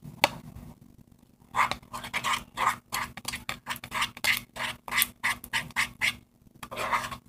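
Plastic spoon stirring sticky glue-and-shaving-cream slime in a plastic bowl as contact solution starts to set it: quick, even wet strokes, about three or four a second, beginning a second and a half in.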